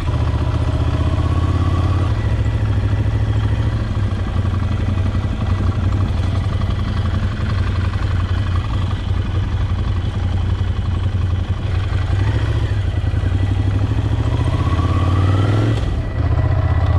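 Ducati Scrambler Desert Sled's 803 cc air-cooled L-twin running at low town speed, heard from the rider's seat, its revs rising as it pulls away about a second in and again near the end.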